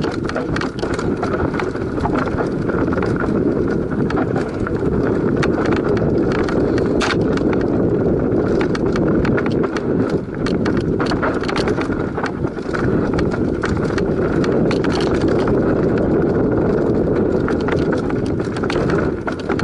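Mountain bike descending a dry, stony dirt trail at speed: tyres crunching over gravel and loose rock, with a steady low rumble and a constant patter of sharp rattling clicks from stones and the bike's chain and frame.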